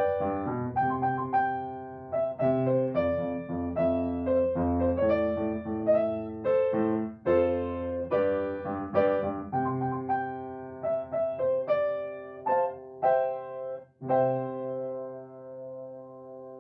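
Solo piano playing a gentle melody over chords, note after note. About fourteen seconds in it settles on a final chord that is held and slowly fades.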